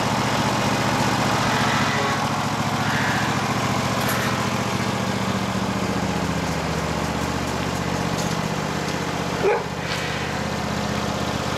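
Husqvarna ride-on lawn mower's engine running steadily as the mower drives off, with a dog barking.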